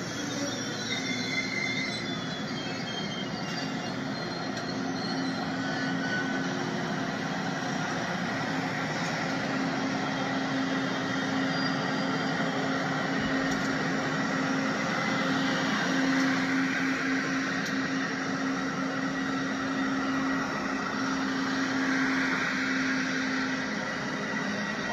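LEGO train cars rolling past on plastic LEGO track, a steady rattling run with a low, even hum.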